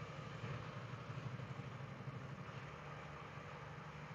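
Semi truck's diesel engine running at a steady cruise, heard faintly from inside the cab as a low, even drone with a light hiss of road noise above it.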